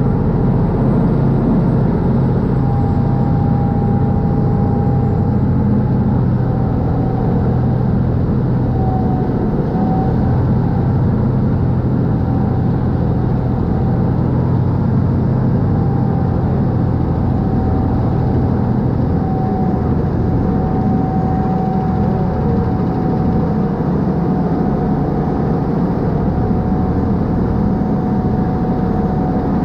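Canal express boat's diesel engine running steadily at cruising speed: a loud low drone with a faint thin whine above it, and water rushing past the hull.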